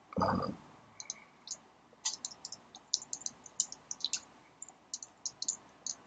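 Typing on a computer keyboard: irregular quick runs of keystroke clicks. A brief, duller thump about a quarter second in is the loudest sound.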